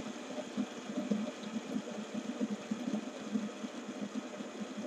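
Several plastic fidget spinners spinning on a wooden tabletop, their ball bearings giving a steady low whirr.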